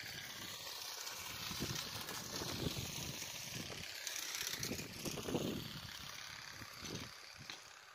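Wind gusting over the microphone outdoors: an uneven rushing hiss with irregular low buffeting, easing off near the end.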